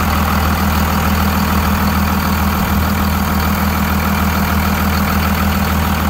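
Diesel engine of a 2001 Freightliner school bus chassis idling steadily.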